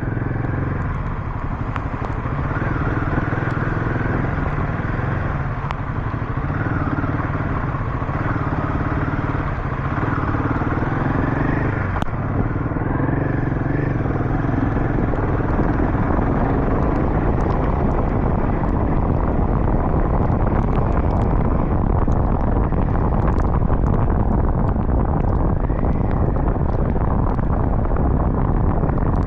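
Royal Enfield Himalayan 452 motorcycle riding along, its single-cylinder engine running under way with wind rumble over the microphone. The engine note rises and falls in the first half, then settles into a steady drone.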